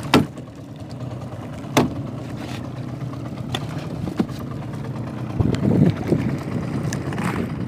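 Small boat engine running steadily, with a few sharp knocks a second or two apart and a cluster of heavier knocks about two-thirds of the way through as a skipjack tuna is handled in the wooden boat.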